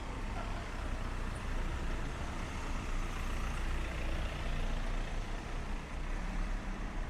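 Street traffic with a motor vehicle's engine running close by: a steady low rumble over road noise.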